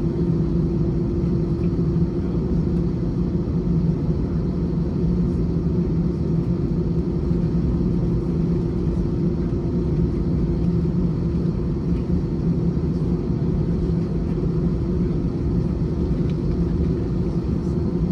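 Steady cabin drone of an Airbus A321 with its jet engines at idle, heard inside the cabin: an even low rumble with a steady two-note hum and no change in level.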